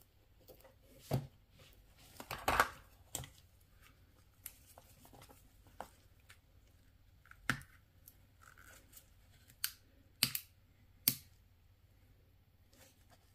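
Plastic parts of a Mercedes-Benz key fob housing clicking and tapping as they are handled and worked apart or fitted together. Scattered sharp clicks, with a louder cluster about two and a half seconds in and a few single clicks spread through the rest.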